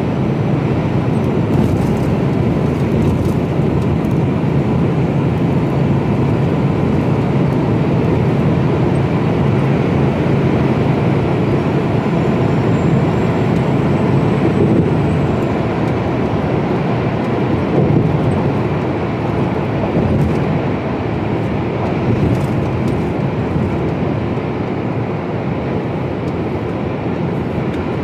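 Steady drone of a Mercedes-Benz Actros lorry cruising, with diesel engine and tyre noise as heard in the cab. It swells a little midway as another container lorry draws alongside and passes.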